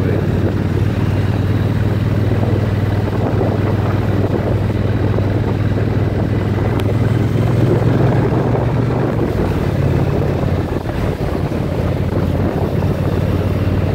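2017 Triumph Bonneville T120's 1200 cc parallel-twin engine running steadily as the motorcycle rides through town, heard under heavy wind buffeting on the phone's microphone. The engine note eases briefly about eleven seconds in.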